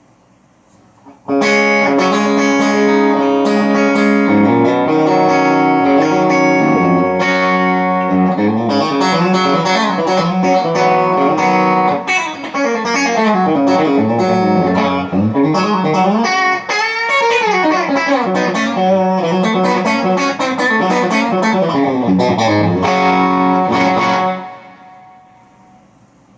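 Electric guitar played through an amp, its signal sent over a Joyo wireless guitar system: chords and single-note lines, starting about a second in and stopping near the end, with notes gliding in pitch about two-thirds of the way through.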